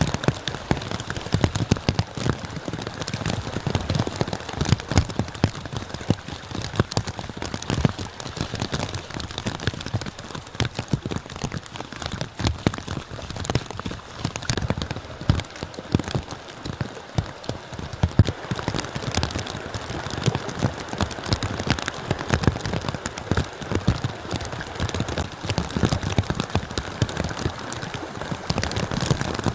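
Rain falling steadily, a dense, irregular patter of drops striking close by.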